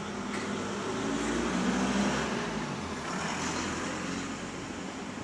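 A road vehicle passing by: a low engine rumble and road noise that swell about a second in, peak around two seconds, then fade.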